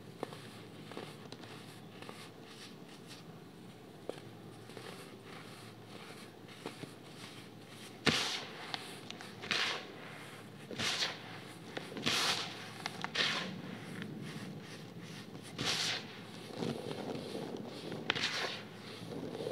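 Baking soda clumps being crushed and crumbled by hand: a soft powdery rustle with faint ticks at first, then from about eight seconds in a series of louder, gritty crunches about a second apart as clumps break apart between the fingers.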